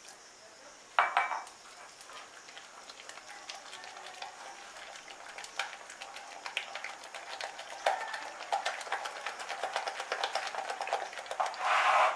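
Gram-flour batter being beaten by hand in a glass bowl, with water worked in a little at a time: wet slapping and squelching with small clicks against the glass, growing quicker in the second half. A short loud burst comes about a second in and another near the end.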